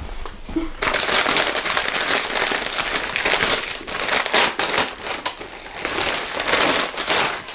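Brown paper package wrapping crinkling and rustling as it is torn open and crumpled by hand, starting about a second in.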